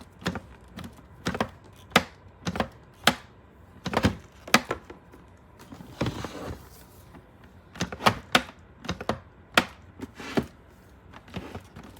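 Irregular plastic clicks and knocks as a Koolatron retro mini fridge is handled and its door is opened and pushed shut, the door not staying closed. A brief rustle about six seconds in.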